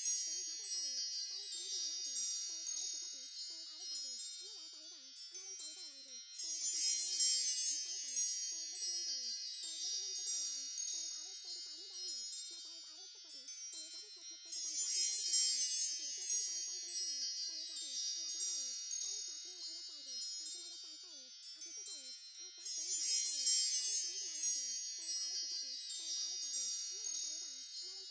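Wind chimes tinkling continuously in a high register, in a loop that swells again about every eight seconds.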